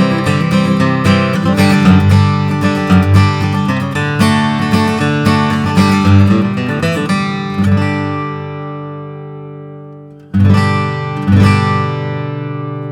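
Gibson Custom Advanced Jumbo acoustic guitar with solid mahogany back and sides being played: a busy run of picked notes and chords, then a chord left to ring and fade from about seven seconds. Near ten seconds come two strummed chords about a second apart, left ringing.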